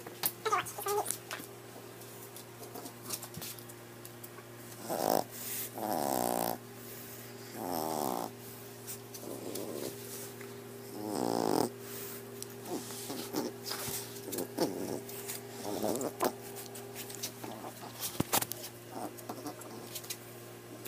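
A dog 'talking': about six drawn-out grumbling, whining calls with pauses between them, pitched up because the recording is sped up. A steady low hum runs underneath.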